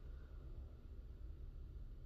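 Quiet room tone: a steady low hum with faint hiss and no distinct sounds.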